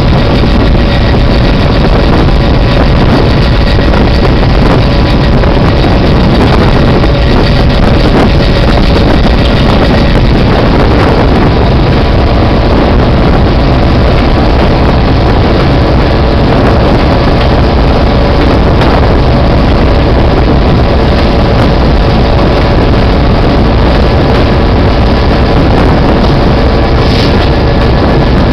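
Diesel locomotive No. 710 running steadily as it travels down the track, a loud continuous engine drone with wind buffeting the microphone.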